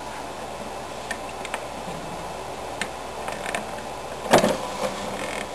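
Pop-up optical drive bay of a GMC R-2 Toast PC case moving: scattered light mechanical clicks, then a louder clunk about four seconds in as the mechanism reaches its stop.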